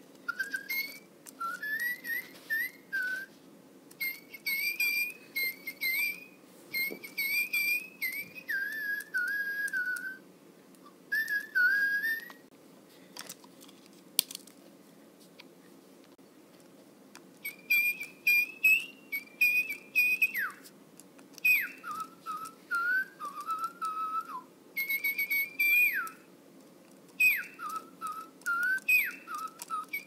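Little Live Pets Secret Sweetie toy songbird whistling electronic birdsong: phrases of short whistled notes that slide up and down, with a pause of a few seconds in the middle. A single sharp click sounds during the pause.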